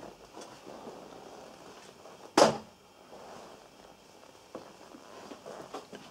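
A single short, loud thump about two and a half seconds in, with a few faint knocks and rustles around it.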